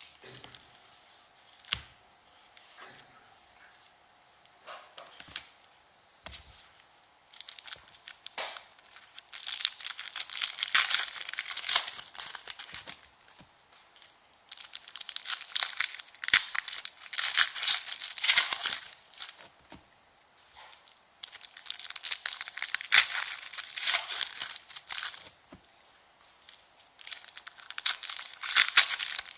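Plastic wrapping on a box of basketball trading cards being torn open and crumpled, in several long crackling stretches, after a few light clicks of handling.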